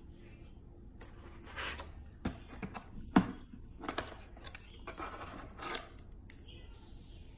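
A plastic tripod stand for a ring light being handled and lifted out of its box: a run of sharp clicks and knocks, the loudest about three seconds in, with short bursts of plastic and packaging rustle between them.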